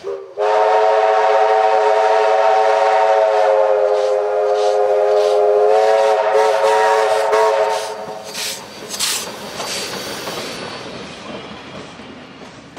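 Steam locomotive 3265's whistle: a brief toot, then one long steady blast of about eight seconds with a slight rise in pitch partway through. As the engine passes close the whistle stops, and its exhaust beats and the rumble of the carriages rolling by follow, fading near the end.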